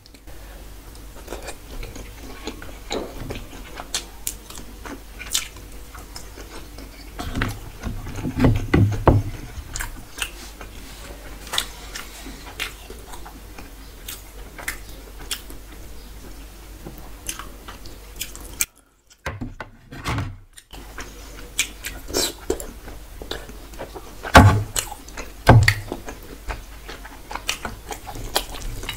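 Hand-mixing rice with egg curry: moist squishing and sticky rustling, with clicks and knocks as plastic bowls are handled and set down on a wooden table. Two loud knocks come near the end, and there are two brief drops to silence a little past the middle.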